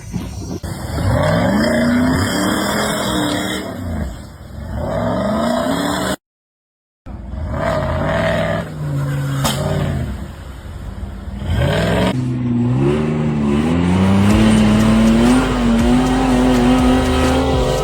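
Off-road 4x4 engines revving hard, the pitch climbing and falling again and again as the drivers work the throttle. A short dead gap about six seconds in marks a cut between clips, and the second half holds one long rev that keeps slowly rising.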